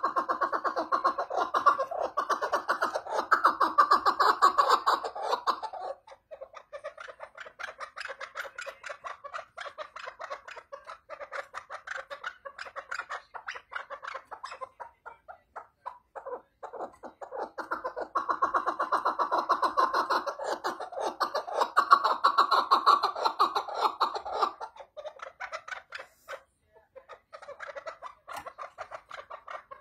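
Chukar partridge calling: a rapid run of chuckling notes. The call comes in two loud, long bouts, one at the start and another about 18 seconds in, with softer chattering between them.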